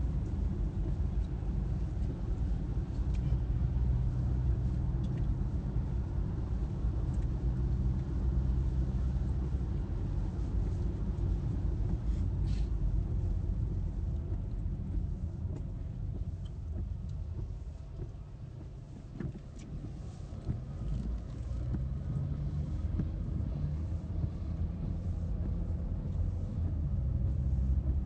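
Steady low rumble of a car's engine and tyres on a wet road, heard from inside the cabin. It eases off for a few seconds a little past the middle, then picks up again.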